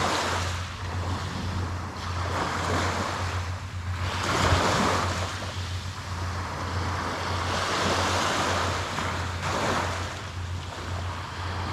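Small waves breaking and washing up on a sand-and-pebble beach. The rush of each wave swells and fades every few seconds over a steady low hum.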